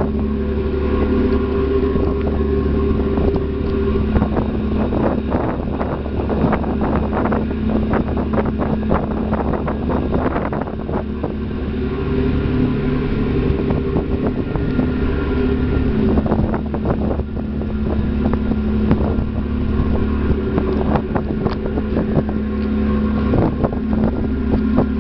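A harbour passenger ferry's diesel engines running steadily, a low drone with a constant hum, heard from the open deck. Wind buffets the microphone in gusts over it.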